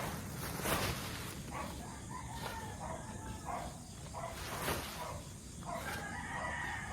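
A shovel scraping and scooping dry chicken manure in repeated strokes, with faint bird calls behind it.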